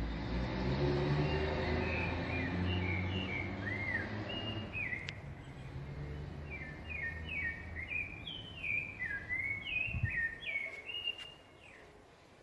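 Small birds chirping in quick repeated trills, busiest in the second half, over the low rumble of a passing motor vehicle that fades away over the first few seconds. A short dull thud about ten seconds in.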